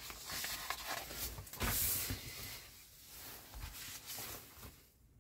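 Paper rustling as glossy magazine pages are handled and turned, loudest about two seconds in.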